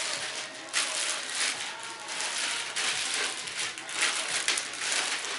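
Plastic bag rustling and crinkling in uneven bursts as a heavy car amplifier is slid out of it.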